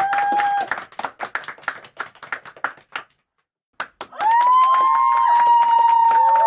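A crowd cheering and yelling trails off into scattered hand claps that thin out, then the sound cuts to silence for about a second. A new burst of loud crowd cheering and screaming starts about four seconds in.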